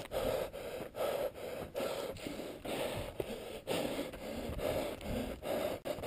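A runner breathing hard on a steep uphill trail, quick rhythmic gasps about three a second.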